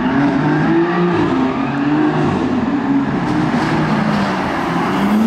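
BMW M4 G82's twin-turbo straight-six engine running under throttle as the car drives up, its pitch wavering up and down.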